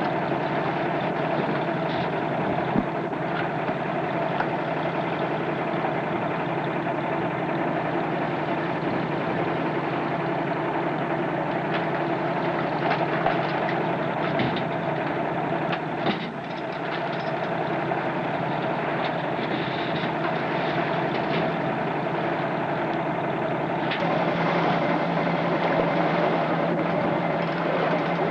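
A boat's engine running steadily at low speed, a little louder about three quarters of the way through.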